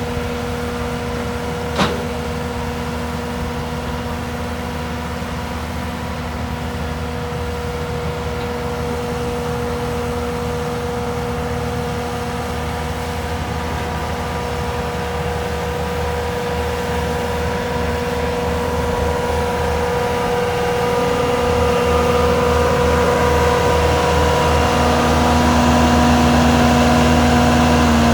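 Bobcat S630 skid-steer loader's diesel engine running steadily, with a single sharp click about two seconds in. It gets gradually louder over the last several seconds.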